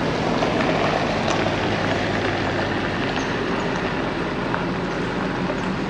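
Nissan Patrol GU four-wheel drive driving slowly along a gravel track: a steady engine note with tyre noise on the gravel.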